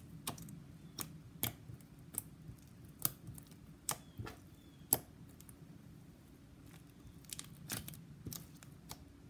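Soft, slightly sticky slime being kneaded and stretched by hand, giving irregular sharp clicks and pops, roughly one a second, over a faint steady low hum.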